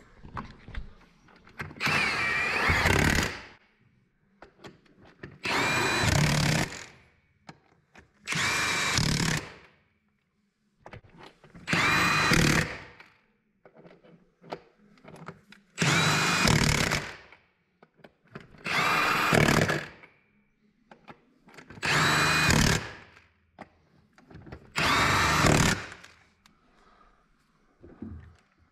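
Cordless impact wrench running wheel nuts onto a tractor wheel hub: eight bursts of about a second each, a few seconds apart, each a whining hammer-rattle as a nut is driven home.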